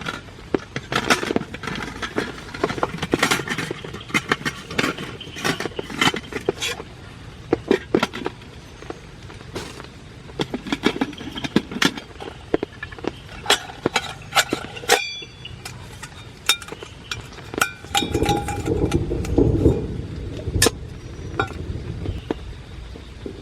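Steady rain with many irregular taps and knocks, like drops and gear being handled at a camp. About fifteen seconds in a single metallic clink rings briefly, and near the end comes a short run of heavier, low knocks.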